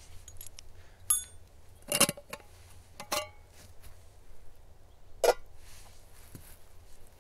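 Camp cooking gear being handled: four sharp metallic clinks and knocks spread over several seconds, one of them ringing briefly.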